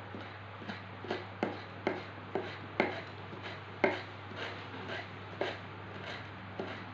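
Kitchen knife chopping on a plastic cutting board: about fifteen sharp, uneven strikes, roughly two a second.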